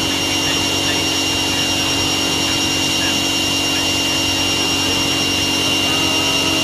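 Mini CNC router spindle running steadily while its cutter mills a key-shaped pocket in metal. It makes a constant high whine with a lower hum under it, over an even cutting noise.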